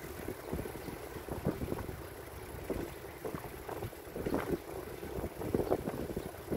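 Wind buffeting the microphone of a camera on a moving bicycle: an uneven rumble with irregular gusts, mixed with road noise from the ride.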